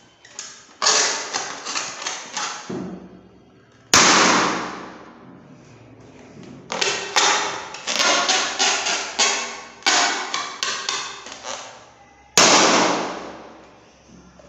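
Two sharp latex balloon pops, about four seconds in and about twelve seconds in, each ringing away over a second or so.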